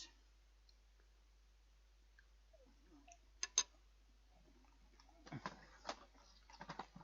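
Quiet room, broken by two sharp clicks about three and a half seconds in, then a flurry of light clicks and rustling over the last two seconds.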